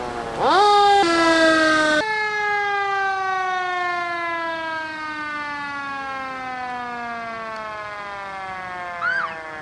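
Fire engine siren that winds up sharply, then falls slowly in pitch over about six seconds, with two short chirps near the end.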